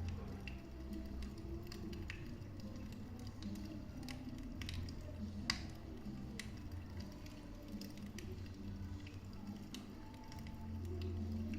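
Wood fire burning in a fireplace: scattered sharp crackles and pops over a low steady rumble, with one louder pop about halfway through.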